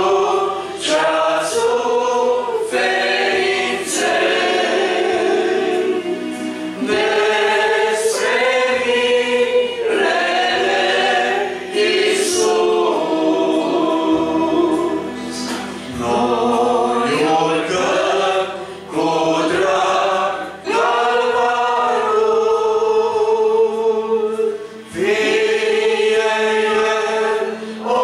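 A congregation singing a Romanian hymn together, many voices holding long notes phrase by phrase, with short breaths between the lines.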